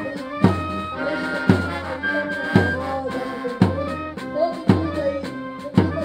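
Instrumental music with a strong drum hit about once a second under sustained pitched notes.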